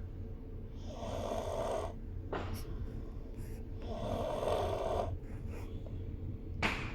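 Snoring in sleep: two long, noisy snoring breaths about three seconds apart, with a brief sharp sound between them and another near the end.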